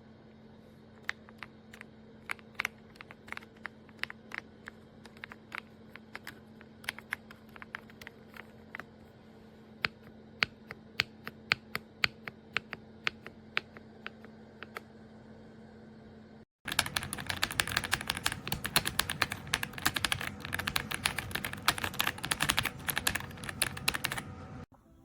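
Typing on a RedThunder K95 mechanical keyboard with pre-lubed linear switches. Scattered keystrokes play over a faint steady hum. After a brief dropout about sixteen seconds in, there is a louder, faster run of continuous typing that stops shortly before the end.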